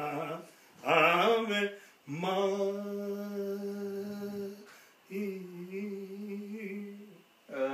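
A man singing unaccompanied in long drawn-out notes: a short wavering phrase, then two long notes held steady.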